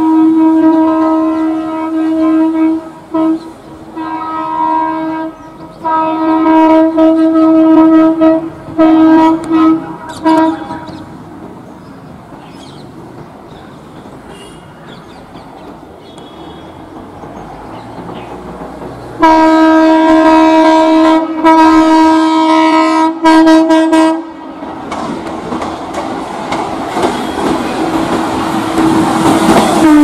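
WAP-7 electric locomotive's horn sounding in a long series of blasts, some held for a second or more and some short toots, in two spells with a quieter gap between, as the Shatabdi Express runs toward the listener at speed. Near the end the rushing, clattering noise of the train swells as it passes close by at high speed.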